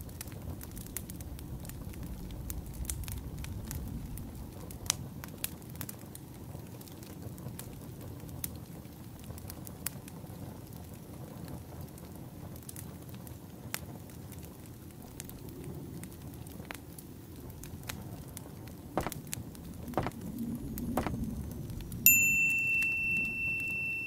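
Crackling wood fire: a steady low rustle with scattered sharp pops and snaps. Near the end a high alarm tone rings out suddenly and slowly fades: the alarm marking the end of a 50-minute study timer.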